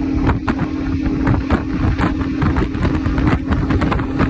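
Boat's outboard motor running at cruising speed with a steady hum, wind buffeting the microphone with rapid irregular thumps.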